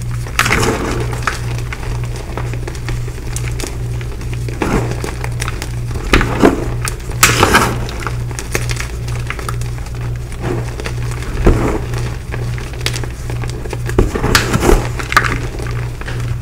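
Hands crushing and squeezing crumbly dyed gym chalk blocks into powder: irregular soft crunches and crackles, a few louder ones now and then, over music with a low, evenly pulsing beat.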